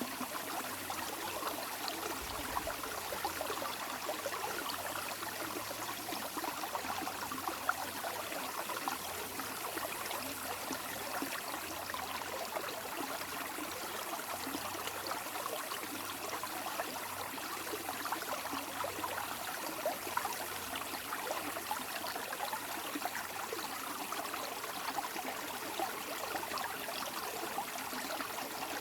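Running water flowing steadily, a constant wash made of many small splashes that neither builds nor fades.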